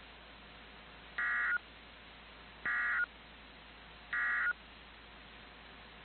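NOAA Weather Radio SAME digital data sending the End of Message code that closes an EAS alert: three short, identical data bursts about a second and a half apart, over a faint steady hiss.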